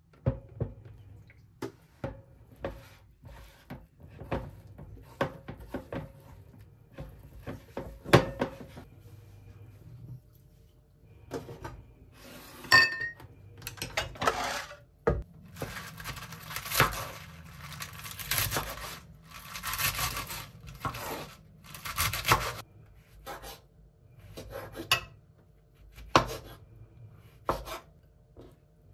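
Chopsticks clicking and scraping against a ceramic bowl as flour and water are stirred together, with a denser stretch of quick scraping in the middle. Near the end come separate knocks of a knife on a wooden cutting board.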